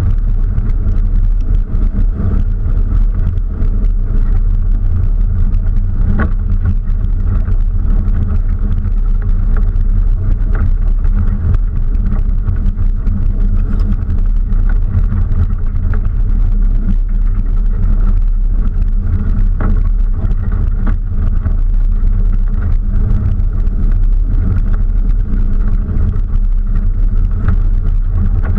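Engine and drivetrain of a doorless, open-top 4x4 running steadily as it drives over a rough, rocky dirt trail: a continuous low rumble with a few sharp knocks from the rough ground.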